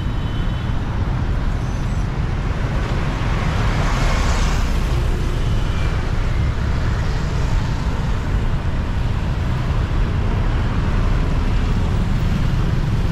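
Heavy street traffic of motorbikes and cars passing close by, a continuous engine and tyre noise. A louder vehicle, a small box truck, goes past about four seconds in.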